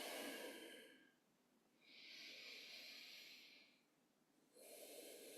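Slow, faint breathing in and out through the nose, three soft breaths with short pauses between them.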